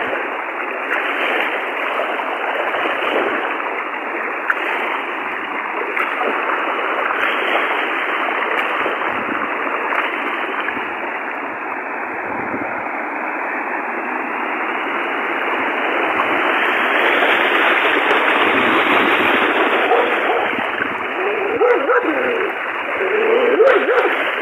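Fast floodwater rushing, a loud, steady, even noise. Near the end a few short pitched calls cut in over it.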